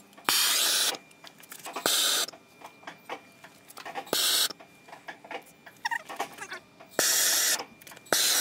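MAP gas blowtorch flame hissing in five short bursts of under a second each, with quieter gaps between, as it scorches the surface of a carved wooden frog. A sharp click comes just before some of the bursts.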